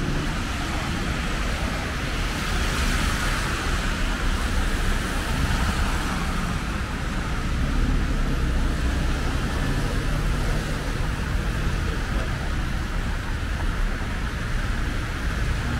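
Street traffic on a rain-soaked road: a steady hiss of tyres on wet asphalt over the low rumble of car and lorry engines.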